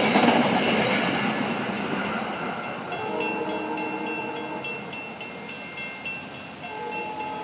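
SEPTA electric commuter train rumbling through the grade crossing and fading away over the first couple of seconds. Then the crossing's mechanical bell (WC Hayes) rings steadily, about three strokes a second; it keeps ringing because a truck under the signals stopped a gate from lowering all the way.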